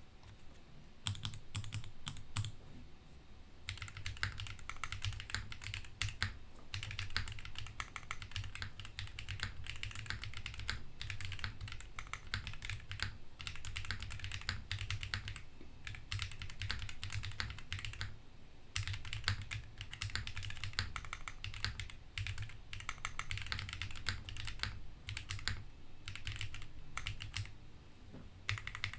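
Typing on a QK60 WKL gasket-mounted mechanical keyboard with Neon switches, an aluminium plate and no foam: fast runs of keystrokes broken by a few short pauses.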